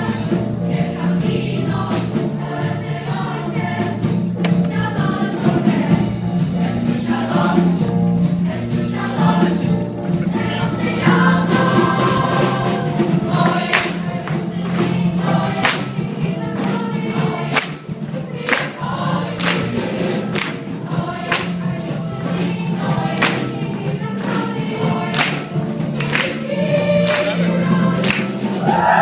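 Children's choir singing a piece with held notes, over a regular beat of sharp percussive strikes about once a second.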